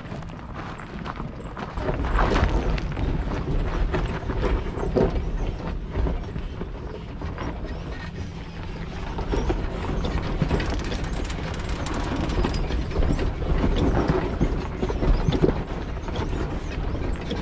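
A 4x4 towing a camper trailer along a rough track: a steady low rumble with irregular knocks and rattles, louder from about two seconds in.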